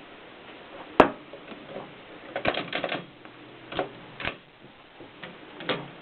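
Mignon 4 index typewriter clacking as it is operated. There is one sharp clack about a second in, a quick run of clacks a little before the middle, then a few single clacks spaced out.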